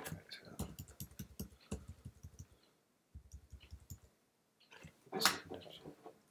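Computer keyboard keys clicking in quick repeated taps, two runs of them, as the Shift and arrow keys are pressed again and again to nudge a selection. A short, louder noise comes about five seconds in.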